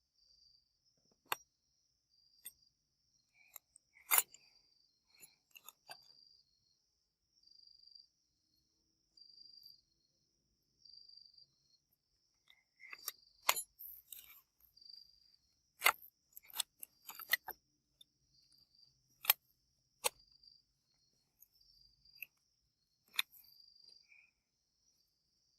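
A cricket chirping in a steady rhythm, one high chirp every second or so, with a scattering of sharp clicks and clinks. The clearest clicks come about four seconds in and in the second half.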